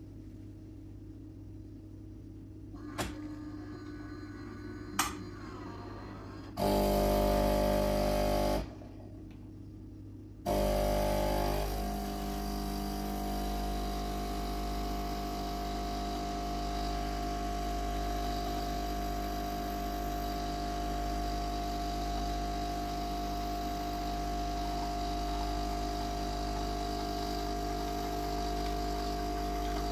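Philips 2300 automatic coffee machine brewing a full cup from ground coffee: after a couple of light clicks it runs for about two seconds, pauses, then starts again about ten seconds in and keeps running steadily with a humming tone as its pump pushes water through the grounds.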